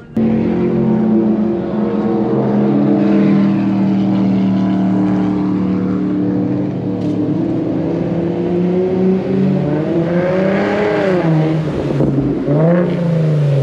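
Car engine and exhaust running at a steady pitch, then revving up and back down twice near the end.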